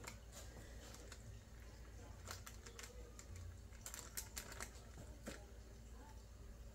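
Faint, irregular light clicks and taps of a small spoon against a cake tin while fruit cake mixture is spread level in it, with a few quick taps together a little past the middle.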